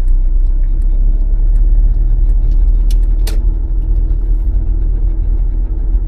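Inside a Land Rover Freelander on the move: a heavy low rumble with a steady whine over it, a weird noise the driver takes for the power steering pump. Two sharp clicks about three seconds in.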